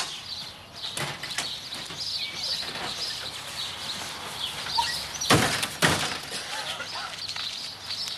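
Small birds chirping steadily in the background, with two sharp knocks about half a second apart a little past the middle.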